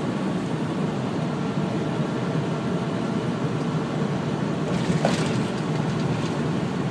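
Steady low drone of engine and road noise inside a moving truck's cab, with a brief hiss about five seconds in.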